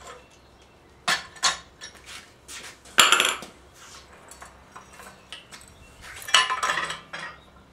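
Old iron blacksmith's leg vise being worked by hand: metal clanks and clinks from its sliding screw handle and jaws. A few sharp clanks, the loudest about three seconds in, and a rattle of clinks near the end.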